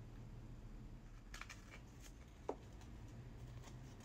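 Quiet handling noise as hands work a jewellery box and a paper instruction card: a few soft rustles and clicks about a second and a half in, and a single sharp tap about two and a half seconds in, over a low steady hum.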